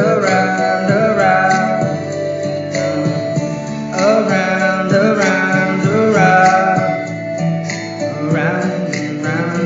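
Music: an acoustic song with plucked guitar, and a wordless melody line gliding over the chords.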